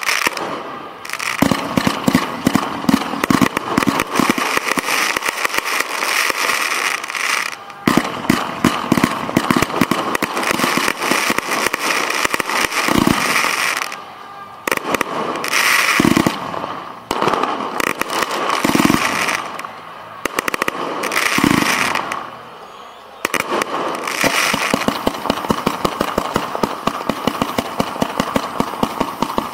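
Professional display fireworks firing at close range from the launch site: dense volleys of shots and crackling, broken by a few short lulls, ending in a fast, even run of shots.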